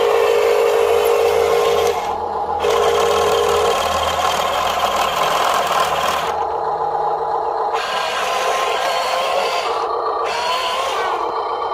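Huina radio-controlled dump truck's electric drive motor and gearbox whining as it drives over gravel, stopping and starting several times, with a rising whine near the end as it speeds up.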